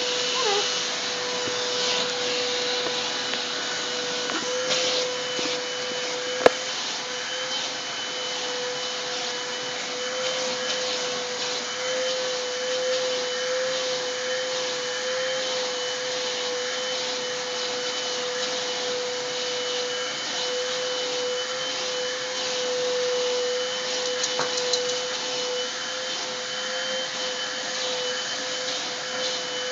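Vacuum cleaner running steadily with a constant whine, its nozzle worked over a dog's coat. A single sharp click about six seconds in, and a few small ticks near the end.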